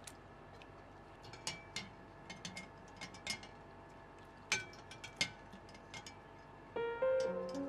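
Wire mesh skimmer clinking and tapping against a glass bowl as rinsed crinkle-cut potato pieces are lifted out of the water, with two sharper clinks about four and a half and five seconds in. Background music starts near the end.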